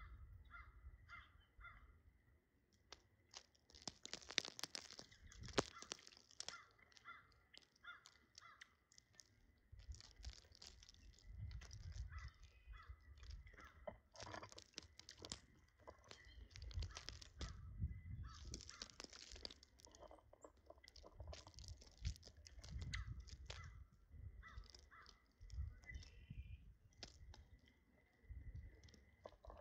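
Birds feeding: runs of short, repeated calls in quick succession, mixed with scratchy rustling and sharp pecking clicks throughout.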